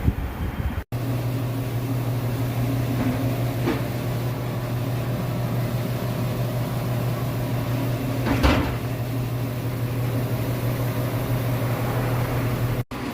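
Steady low hum from a car, with two short knocks about three and a half and eight and a half seconds in: the undercarriage noise in question.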